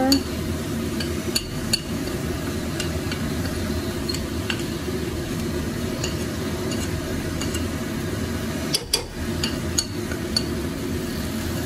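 Garlic and ground spices sizzling in hot oil in a stainless steel pot, with a metal spoon clinking now and then as the spices are scraped off into the pan.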